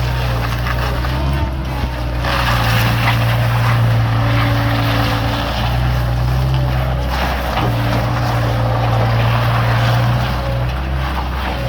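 Bobcat 742B skid steer's engine running steadily, its note shifting a few times, with louder mechanical noise surging in and easing off over the engine.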